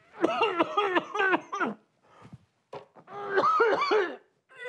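A man's wailing, sobbing cries in two runs, his eyes stung by a freshly diced onion, ending in a short cough.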